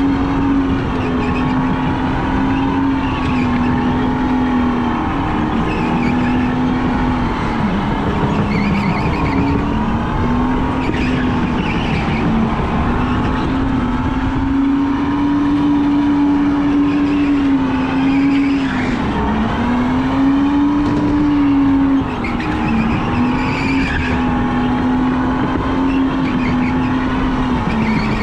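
Electric go-kart heard from on board during a hot lap: a steady motor whine that dips in pitch several times as the kart slows for corners and climbs again on the straights, over constant tyre and track noise.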